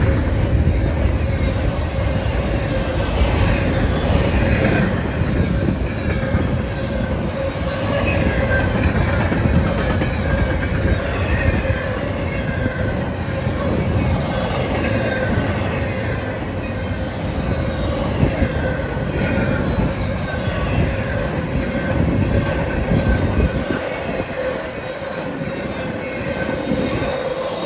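Double-stack intermodal freight train's well cars rolling past close by: a steady rumble and clatter of steel wheels on rail, with a constant whine and high wheel squeals that slide in pitch. The low rumble eases near the end.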